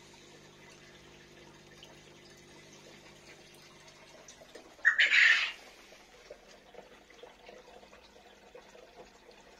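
Faint water trickling and dripping in a glass aquarium, broken about five seconds in by one short, loud hiss lasting under a second.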